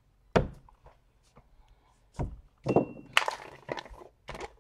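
A sharp knock about a third of a second in and another about two seconds in, followed by a stretch of clattering and clicking with a brief ring, as of items being picked up and set down on a table.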